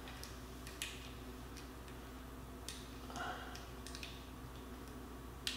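Scattered small clicks and taps of hands working at a hydraulic disc-brake caliper, picking at the plastic pad spacer to pull it out, with a brief soft rustle midway. The sharpest click comes near the end.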